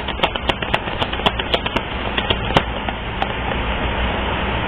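Playing cards shuffled by hand: a quick, irregular run of sharp clicks over the first two and a half seconds, then a steady hiss with a low hum.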